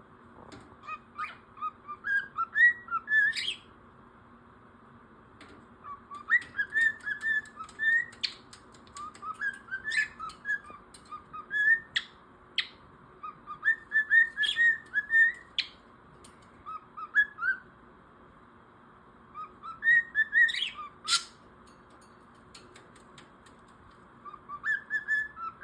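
A pet bird chirping and whistling in bursts of rapid short notes, several phrases a few seconds long with pauses between, some notes sweeping sharply upward.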